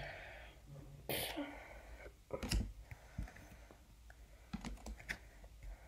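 Stiff trading cards being handled and sorted by hand, giving faint scattered clicks and taps. The sharpest one comes about a second in.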